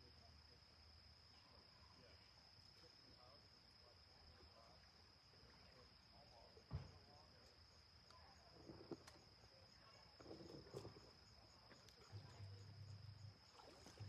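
Near silence with a faint, steady high-pitched insect drone, and a single sharp click about seven seconds in.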